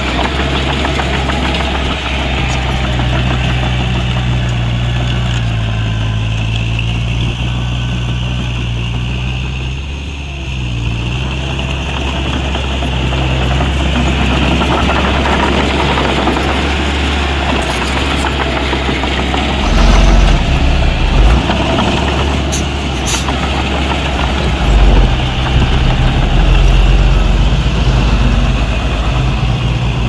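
Heavy diesel engine of earthmoving machinery running under varying load, its pitch shifting up and down a little, with heavier low rumbles about two-thirds of the way in and again near the end.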